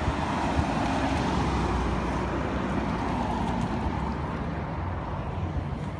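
Road traffic: a car driving past, a steady rumble and tyre hiss that slowly fades.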